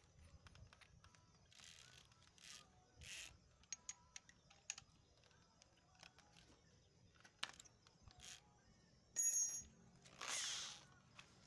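Small metal clicks and rustling as a steel twist drill bit is handled at a keyed drill chuck. About nine seconds in, the drill bit is set down on concrete with a short metallic ring, followed by a brief scrape.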